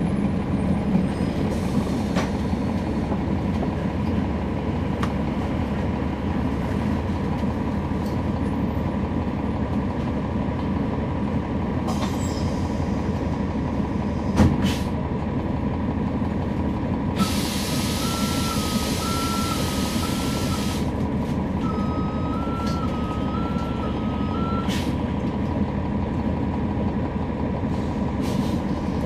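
Inside a NABI 40-SFW transit bus at the rear: the steady low drone of its Cummins ISL9 diesel and ZF Ecolife automatic transmission, with a single knock about halfway through. Later a loud air hiss comes with a beep alternating between two pitches, and the beep sounds once more on its own.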